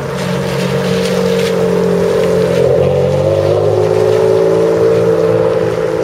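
Ferrari Enzo's V12 engine running at low revs as the car drives slowly past and away on wet pavement, a steady note that shifts in pitch about halfway through.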